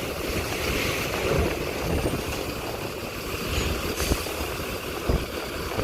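Heavy vehicle's engine running at low revs, a steady low rumble, as the bus creeps onto the ferry's car deck.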